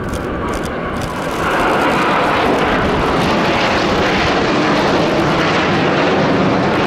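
Jet engines of a four-ship formation of J-10 fighters on a flypast, a steady jet noise that swells louder about a second and a half in and then holds.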